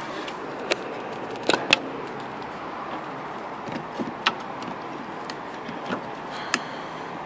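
Hard plastic clicks and knocks as an electric-car charging connector and its cable are handled, a handful of sharp clicks, the loudest a couple of seconds in, over a steady background hiss.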